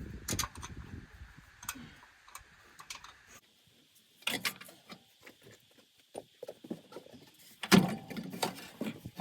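Scattered clicks, clinks and knocks of hand tools and metal parts being worked, with a louder knock about three-quarters of the way in.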